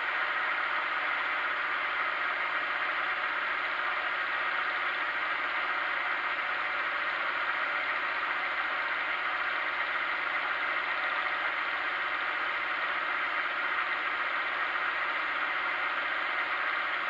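Milling machine running steadily with its power feed driving the table along the X axis while the gear cutter takes a pass on a brass blank.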